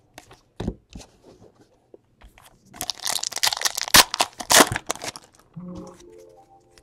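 A 2017 Donruss baseball card pack being torn open and its foil wrapper crinkled in the hands: a few light clicks, then a dense run of crackling about three seconds in that lasts around two seconds.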